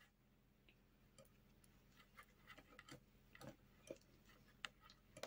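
Faint, irregular clicks of metal knitting needles as stitches are knitted and slipped, over near silence.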